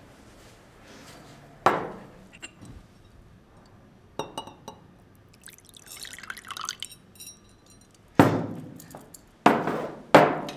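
Cut-crystal decanter and glass tumbler being handled. There is a sharp glass knock, a few light clinks, liquor pouring into the tumbler for about a second and a half midway, then three loud glass knocks near the end.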